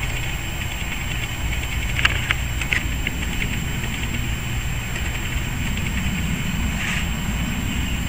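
Steady low outdoor background rumble with a constant high hiss, broken by a few short sharp clicks about two seconds in and again near the end.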